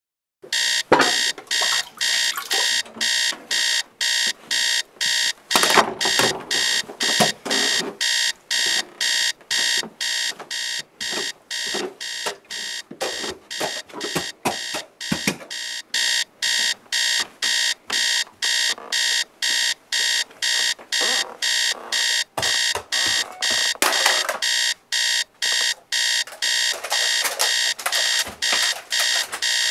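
Electronic alarm clock beeping over and over, high-pitched and even, about two beeps a second, starting about half a second in. Scattered thumps and knocks sound underneath.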